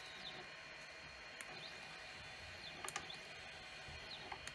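Quiet steady hiss with faint short whines that rise and fall every second or so, from the CNC 3018 Pro's stepper motors driving the axis back and forth, and a few light clicks.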